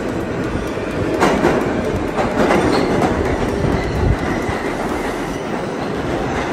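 New York City subway train pulling into an underground station, a loud steady rumble with the wheels clattering on the rails. It swells about a second in, with short metallic squeals over the next few seconds.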